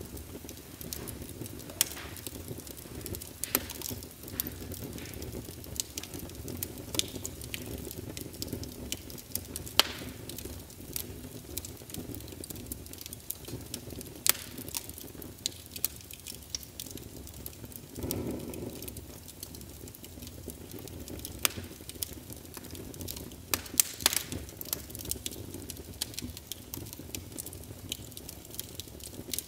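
Crackling like a fire burning: irregular sharp pops over a low steady rumble, with a brief louder swell about eighteen seconds in.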